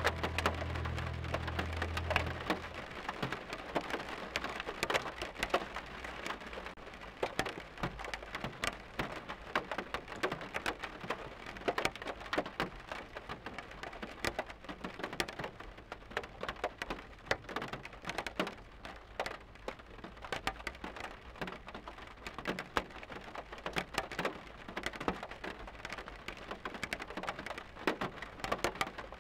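Steady rain falling, a dense irregular patter of drops. A low held tone under it stops about two seconds in.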